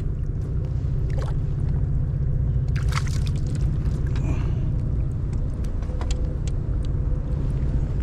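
Steady low rumble of wind buffeting the microphone, with a short splash about three seconds in as the smallmouth bass is lifted from the water by its lip, and a few small clicks and knocks of handling.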